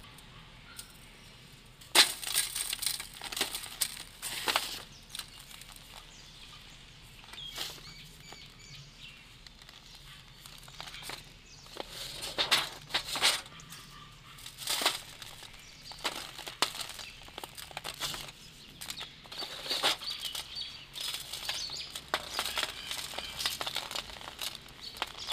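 A dry sand-and-cement block crunched and crumbled by hand, with gritty crumbs and powder falling onto a thin metal sheet. A sharp crack comes about two seconds in, then irregular bursts of crunching.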